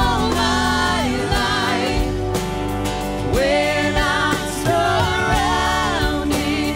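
Live worship band: several voices singing together over acoustic and electric guitars and a steady band accompaniment.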